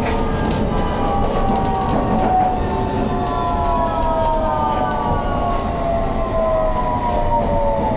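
Hammersmith and City line Underground train running, its rumble overlaid by a whine of several tones falling slowly in pitch as the train slows.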